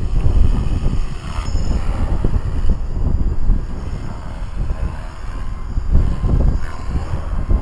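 Wind buffeting the microphone in gusts, the loudest sound, over the faint whine of a Blade 360 CFX electric RC helicopter flying overhead.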